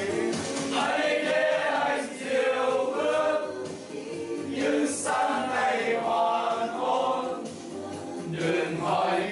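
A group of men singing together in chorus, a melody with held notes and short breaks between phrases.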